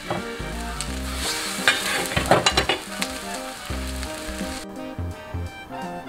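Battered zucchini slices frying in hot oil in a stainless-steel pan, with a steady sizzle and a cluster of sharp crackles between about one and a half and three seconds in as more slices go into the oil. The sizzle stops abruptly near the end.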